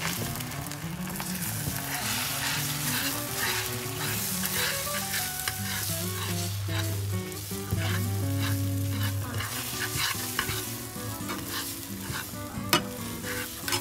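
Beaten egg sizzling in a nonstick frying pan while a metal spoon stirs and scrapes it into scrambled egg, with many small clicks of the spoon against the pan and a sharper knock near the end.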